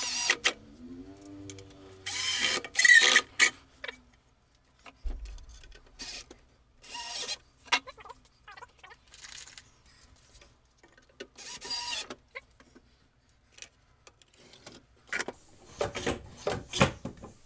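Cordless drill-driver driving screws in short bursts, its motor whine sliding down and back up in pitch in the first seconds as the trigger is eased and squeezed. A run of sharp clicks and knocks near the end.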